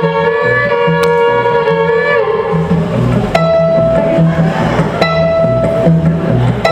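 Fiddle bowing long held double-stop notes, the first sliding down in pitch about two seconds in, then further held notes starting twice, over an upright bass and guitar keeping a steady chugging beat. It is a train-style fiddle number, the held notes imitating a train whistle.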